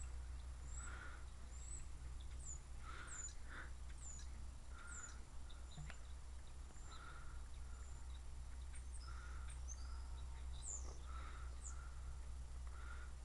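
Birds calling: scattered short high chirps and a lower call repeating about once a second, over a steady low hum.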